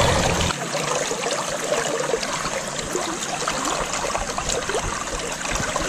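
Shallow stream water flowing steadily around the legs of someone wading in it, a continuous rushing trickle.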